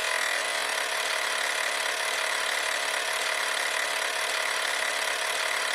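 A steady hiss-like noise, even in level, with a faint steady high tone held through it.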